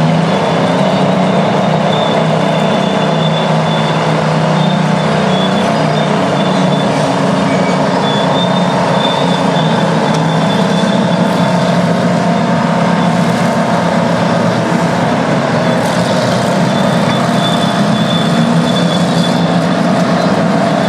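Detroit two-stroke diesel engine of a vintage Terex earthmover running steadily and loudly, with a faint high whine over the engine note.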